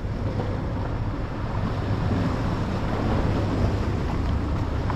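Steady wind rumbling on the microphone over the wash of sea waves against the rocks.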